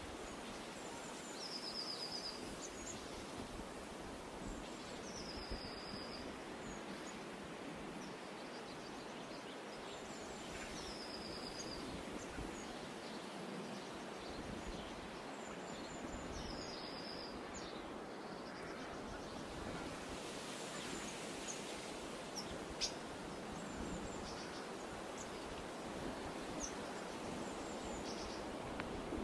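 Outdoor meadow ambience: a steady hiss of open-air noise while a songbird repeats a short, high trilled phrase about every five seconds, with scattered brief higher chirps from other birds.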